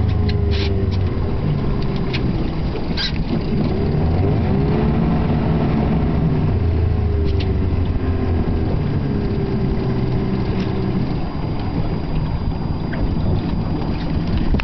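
Boat motor running, its pitch slowly rising and falling, over a low rumble, with a few sharp clicks in the first three seconds.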